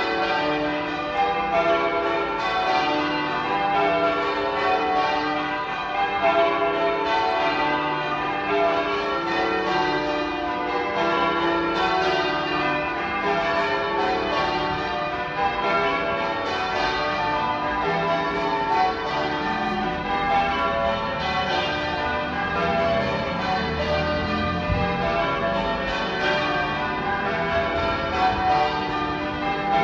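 Manchester Cathedral's church bells change ringing: a continuous, even succession of bell strokes, the bells sounding one after another in changing order.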